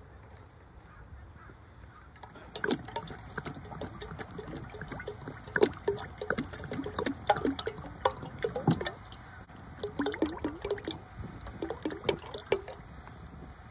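Cooking oil pouring from a plastic jug into a metal pot, in an uneven run of glugs and splashes that begins about two seconds in and stops shortly before the end.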